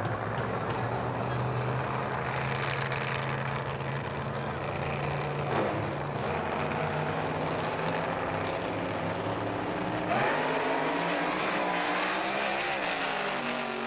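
Two drag-racing cars' engines run steadily at the start line, then rev up and launch about ten seconds in, their pitch rising as they pull away.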